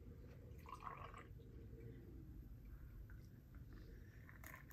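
Hazy IPA being poured from a can into a small glass, a faint splashing pour, with a light click near the end.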